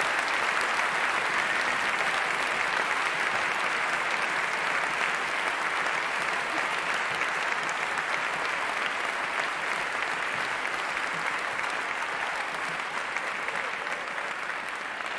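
A large audience applauding: dense, steady clapping that slowly thins and grows quieter toward the end.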